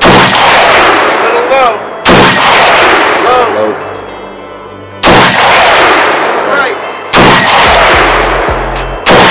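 Mini Draco AK-pattern pistol in 7.62×39 firing slow, aimed single shots: five sharp shots about two to three seconds apart, each followed by a long echo dying away.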